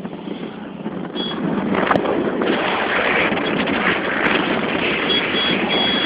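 Wind rushing over the microphone of a phone carried on a moving motorcycle, with the motorcycle's engine running underneath; the rush grows louder about a second and a half in.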